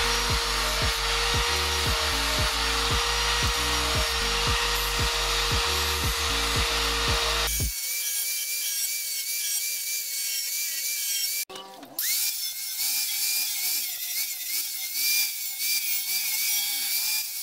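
Handheld electric angle grinder with a cutting disc running with a steady whine as it cuts into a plastic scooter front fender, over background music with a steady beat. About seven and a half seconds in the sound changes abruptly and the whine turns higher and wavering in pitch, with a brief break near eleven seconds in.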